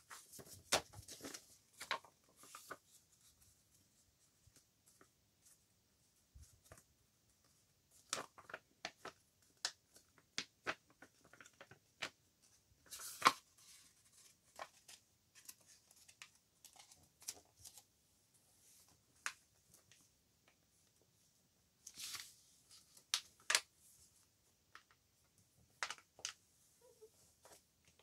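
Sheets of printed paper handled by hand: short, scattered rustles, crackles and small taps as the stacked sheets are shifted, bent and folded over into a booklet, with quiet gaps between.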